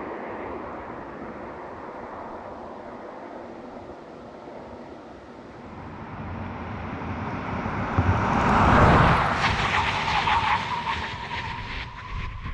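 Land Rover Discovery D300 SUV on the move: steady road and tyre noise, which grows louder from about six seconds in and peaks about nine seconds in as the vehicle comes closest, with crackling from the tyres afterwards.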